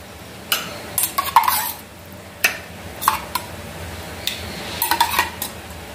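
A spoon scooping thick curd, with a series of irregular clinks and knocks against a steel vessel and a ceramic mug.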